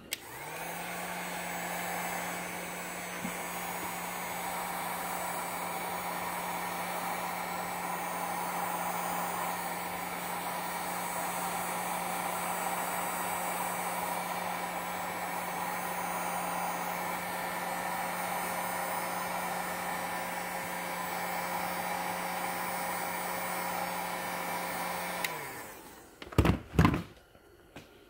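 Electric heat gun running with a steady rush of blown air over a motor hum, aimed at the rubber boot on a seat-belt strap to soften it. It switches on just at the start and winds down about 25 seconds in, followed by a few sharp knocks.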